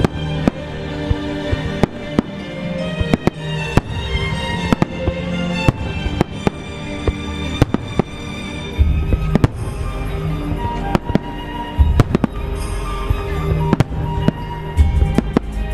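Aerial fireworks bursting in quick succession, many sharp cracks over music. Deeper booms come in from about nine seconds in.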